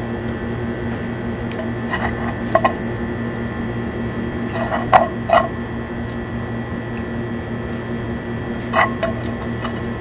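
A fork clinking and scraping on a frying pan during eating, a handful of short clicks over a few seconds, over a steady hum.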